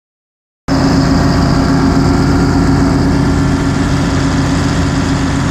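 Engine of a Hopto H1900 hydraulic excavator running steadily at an even speed, cutting in abruptly under a second in after dead silence.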